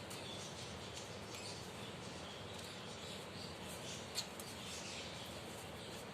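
Finches chirping: scattered short, high, faint chirps over a steady hiss, with one sharp click about four seconds in.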